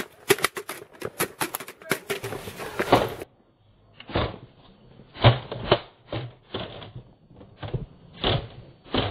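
A quick run of sharp, irregular knocks and clatters on stone paving, then, after an abrupt cut about three seconds in, a slower string of duller knocks.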